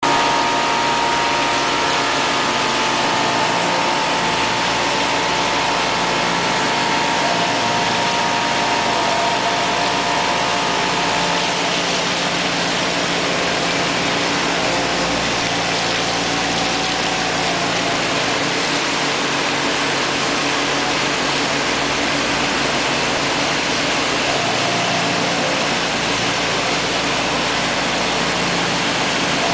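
Bimatech CNC stone machining centre roughing a marble block with a mushroom cutter: a steady, loud grinding of the cutter in the stone under a constant hiss of water coolant. A steady whine of several tones sits over it for about the first eleven seconds, then fades.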